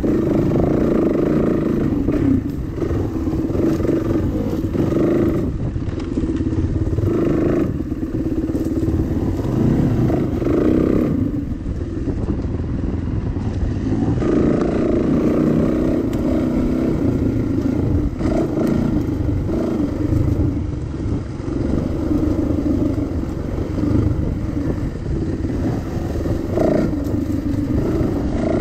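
Dirt bike engine ridden hard on a rough trail, the throttle opening and closing every few seconds with short lulls, over clattering from the bike.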